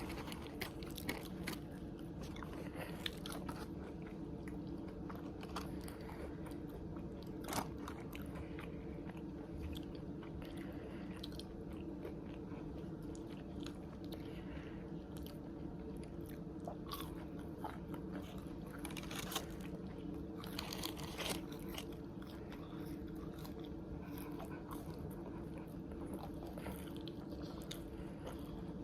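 Close-miked eating of fast food: biting and chewing with scattered crisp crunches and mouth clicks, over a steady low hum.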